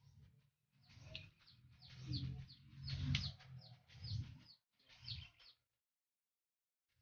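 Small birds chirping and tweeting, a quick run of short calls that stops about five and a half seconds in, over a faint low hum.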